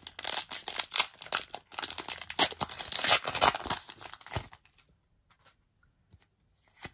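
Pokémon booster pack's foil wrapper being torn open and crinkled by hand, a dense crackling for about four and a half seconds, then only a few faint ticks.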